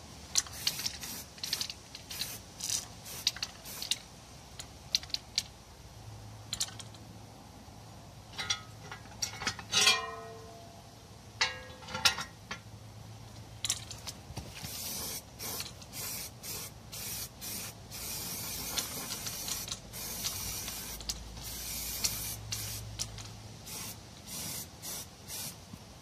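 Aerosol can of zinc spray paint hissing in short bursts, then in longer, closer-spaced bursts from about fourteen seconds in, as a metal battery tray is painted. A couple of brief ringing knocks around ten and twelve seconds in.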